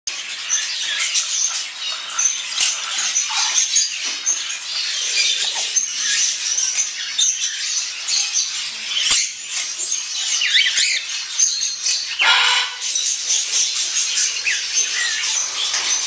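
Many caged small pet birds chirping and twittering at once in a continuous busy chorus, with one brief lower-pitched sound about three-quarters of the way through.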